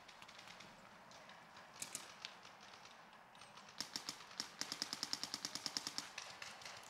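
Paintball markers firing: a few scattered pops about two seconds in, then a rapid run of fast, even popping from a marker fired in quick succession from about four and a half to six seconds.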